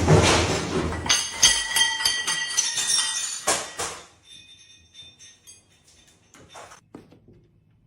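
Jingling of small bell-like metal, struck over and over for about three seconds after a short rush of noise, then dying away into a few faint clicks.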